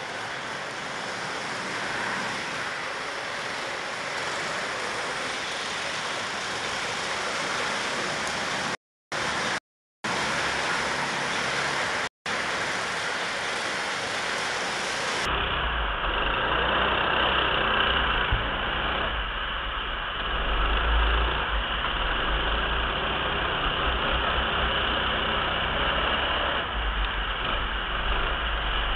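Ice karts running on an ice rink: a steady, noisy engine sound heard from the side of the track, cut by two brief silences partway through. About halfway it switches to an onboard view, where the kart's running is mixed with a heavy low rumble of wind on the microphone.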